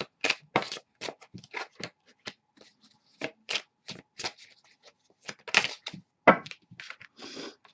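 Tarot cards handled and dealt from a deck: a run of short crisp flicks and snaps as cards are pulled off and laid down, with a longer rustle near the end.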